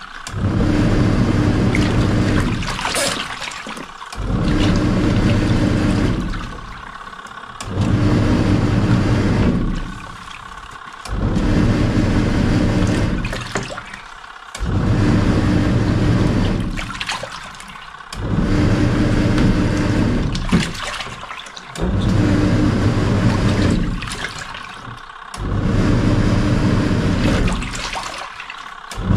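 Samsung SW-655P twin-tub's wash motor driving the pulsator through a load of jeans and water, humming in spells of about two and a half seconds with a short pause between each, about every three and a half seconds, as the pulsator turns one way and then the other. Water sloshes in the tub throughout.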